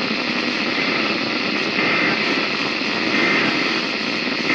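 Weather radio receiver putting out heavy static hiss from poor, interference-laden reception. Three short data bursts come through the static about a second apart, the end-of-message code that closes the weekly test broadcast.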